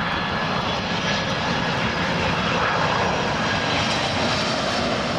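Boeing 767-300ER airliner flying low on final approach with landing gear down, its twin turbofan engines giving a steady, even jet rush with a faint thin whine running through it.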